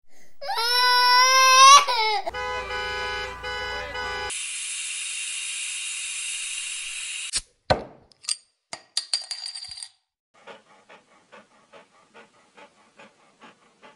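A sequence of sound effects: a toddler crying briefly, then a held tone over a low rumble, then a steady hiss of steam from an overheated car engine, a few sharp clicks, and a dog panting in soft regular puffs about two to three a second.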